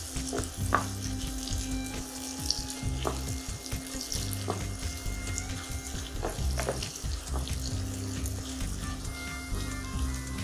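Chopped onions frying in hot mustard oil and ghee in a kadhai, sizzling steadily while being browned towards golden. A spatula stirs through them, scraping the pan a few times.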